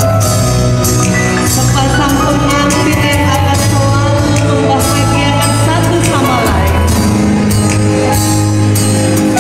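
Music: a song with singing over a steady beat and bass.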